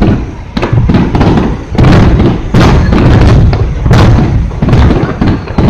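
Aerial firework shells bursting in quick succession: about five heavy booms over a few seconds, each rumbling on into the next.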